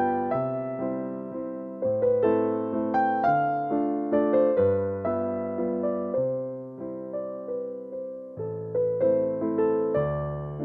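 Background piano music: a melody of struck notes, each fading away, over lower bass notes and chords.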